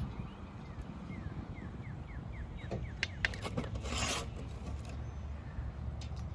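Faint rubbing and scraping of a washer and nut being fitted onto a bolt through a cast-iron bench leg, with one louder scrape about four seconds in. A quick run of about a dozen short falling chirps sounds in the first half.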